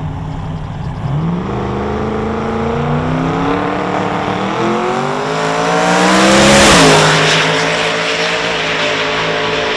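Twin-turbocharged 454 cubic-inch V8 of a Holden Monaro drag car, its revs climbing steadily for several seconds as it leaves the start line. It is loudest about six to seven seconds in as it goes past, then drops suddenly in pitch as it pulls away down the strip.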